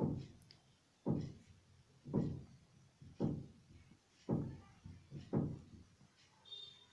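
A dull knock repeated six times at an even pace of about one a second, each one sharp at the start and dying away.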